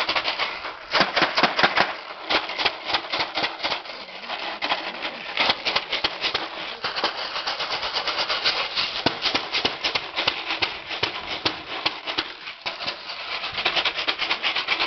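Empty plastic bottle crackling and crinkling as a Belgian Malinois puppy bites and tugs at it: a rapid, irregular run of crackles with louder clusters about a second in and near the end.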